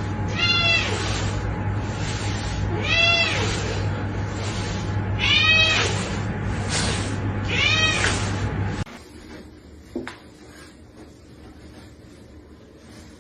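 A cat meowing about five times, each meow rising then falling in pitch, over a steady hum. About nine seconds in, the hum cuts off, leaving a quieter room and one short click.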